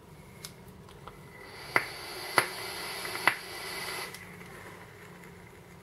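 Coil Art Azeroth rebuildable dripping atomizer with a 0.15-ohm coil, fired on a Geekvape Aegis box mod during a puff. It hisses and sizzles for about two and a half seconds, starting about a second and a half in, with three sharp pops from the hot coil along the way.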